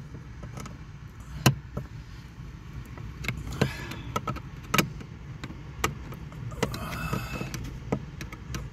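Screwdriver clicking and scraping against the screws of a heater core housing as they are tightened by hand, in irregular sharp clicks, the loudest about one and a half seconds in.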